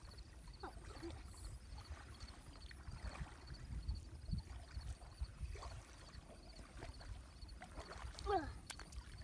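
Faint dips and drips of a double-bladed kayak paddle in calm pond water, over a low wind rumble on the microphone. A brief falling call sounds near the end, followed by a single sharp click.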